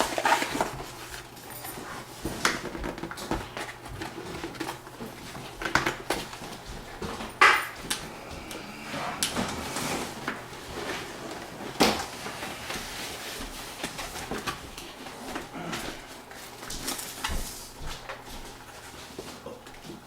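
A motherboard box and its packaging being handled: irregular rustling and scraping with scattered knocks. Two louder knocks come, one about a third of the way in and one just past the middle.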